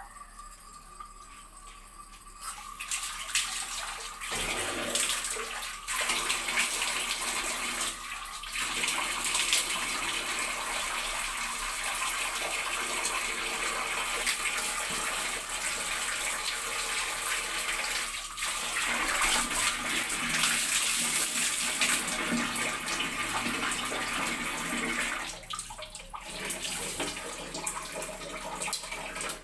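Water running and splashing, starting about two seconds in and briefly easing off a few times, as water is splashed onto the face by hand.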